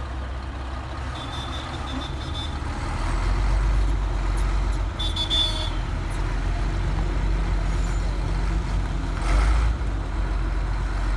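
Bulldozer's diesel engine running with a steady low rumble. There is a short high squeak about five seconds in and a brief surge near the end.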